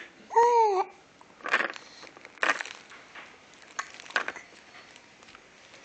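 A baby gives one short babble with a rising-then-falling pitch, then three short, sharp hiccups about a second or more apart.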